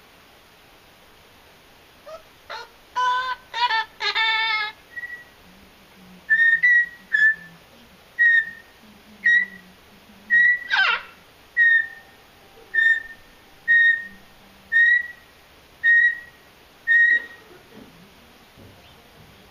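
Blue-fronted Amazon parrot vocalizing: a few short calls, then a run of about eleven short whistled notes on one pitch, roughly one a second. About halfway through the run comes one loud whistle that slides steeply down.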